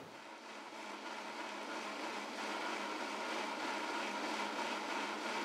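Electric blender with a stainless-steel jar running on high speed, its motor whirring steadily as it blends soaked oats, peanuts, banana and water into a smoothie. It grows a little louder over the first couple of seconds, then holds.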